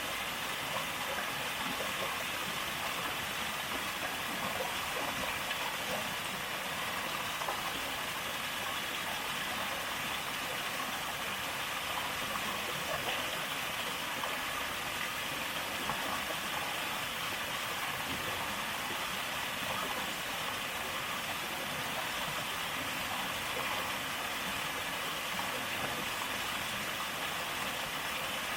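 Mountain valley stream rushing over rocks: a steady, even hiss of flowing water.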